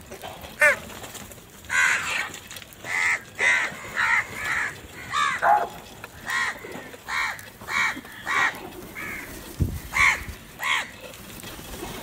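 A flock of house crows cawing over and over, short harsh calls coming about one every half second to second, some overlapping, as they squabble over food. A dull low thump comes about ten seconds in.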